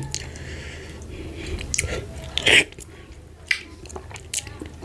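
Close-miked chewing and wet mouth smacks of someone eating oatmeal fufu with ogbono soup, with a louder smack about two and a half seconds in.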